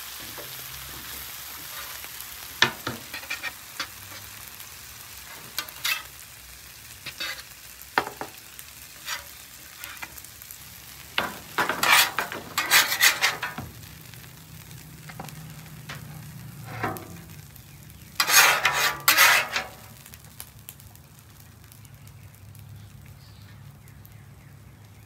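Tomatoes, peppers and olives sizzling on a steel flat-top griddle, with sharp clicks and scrapes of a metal spatula against the cooktop. There are two longer stretches of scraping, near the middle and about three-quarters of the way through.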